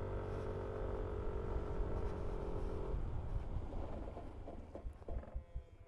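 Yamaha NMAX 155 scooter's single-cylinder engine running steadily under throttle, with wind rumble on a helmet-mounted mic. About three seconds in the engine note falls away as the throttle closes and the scooter coasts, leaving only gusty wind rumble.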